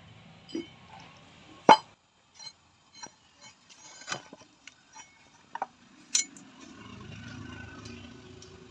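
Steel clinking and knocking as a flat steel plate is handled and set down on a work block and a steel rule is laid across it: a string of sharp clinks, the loudest about two seconds in. A low steady rumble comes in near the end.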